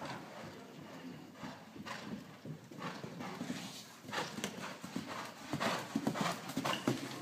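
Horse's hoofbeats at the canter on soft arena footing, growing louder from about four seconds in as the horse comes close by.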